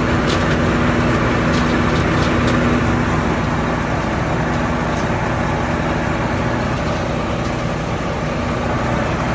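Combine harvester running steadily, a constant engine and machinery hum with a few light clicks in the first few seconds.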